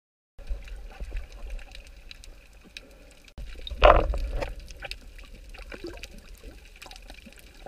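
Underwater sound picked up by a camera held below the surface: a steady low rumble of moving water with scattered faint clicks and crackles, and one louder burst of water noise about halfway through.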